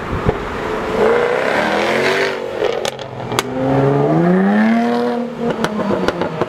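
Jaguar F-Type V8 S's supercharged V8 accelerating hard away, its note rising twice with a gear change between. Sharp exhaust cracks come at the shift and again near the end.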